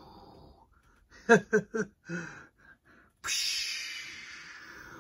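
A man making playful mouth sound effects: three quick, high chirpy syllables, then a sudden long hissing whoosh that fades away.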